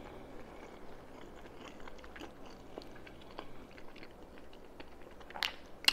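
A person chewing a mouthful of spaghetti with artichokes: faint wet mouth clicks, with a couple of sharper ones near the end.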